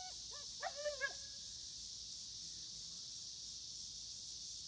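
A dog giving a few short, high whines about a second in, over a steady hiss.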